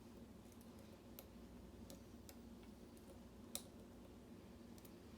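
Faint, scattered clicks of a lock pick working the pins inside a lock core, a handful spread irregularly with the sharpest about three and a half seconds in, over a low steady hum.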